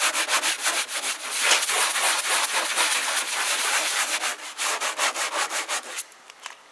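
Stiff hand brush scrubbing a soapy plastic fuel tank on a zero-turn mower, with rapid back-and-forth scratchy strokes that stop about six seconds in.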